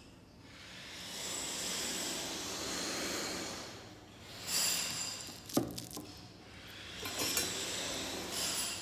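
Small mechanical handling noises from working on a Contax IIa rangefinder camera: rubbing and scraping, with a few sharp clicks and clinks of metal parts past the middle.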